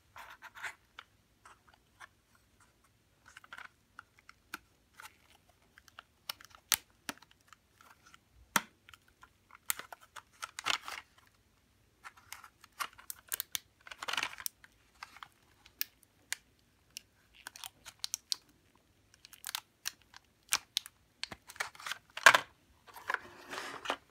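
Clear plastic blister packaging crackling and clicking as it is flexed and pried open by hand, with rapid irregular sharp clicks and a few louder crinkling bursts about halfway through and near the end.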